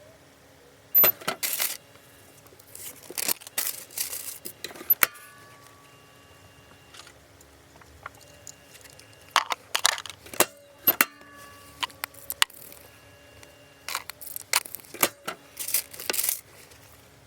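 Intermittent clatter of objects being handled: sharp clicks, knocks and light metallic clinks, some ringing briefly, in four bunches with quiet gaps between them.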